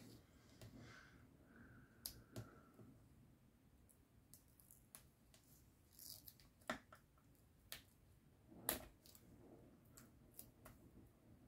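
Faint, scattered snips and clicks of small craft scissors trimming foam tape strips on a paper card frame, with light paper handling. The loudest snips come about a third and three-quarters of the way through.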